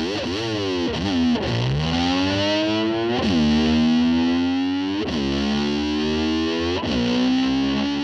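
Background rock music: distorted electric guitar swooping up and down in pitch in repeated slides, holding notes between the swoops.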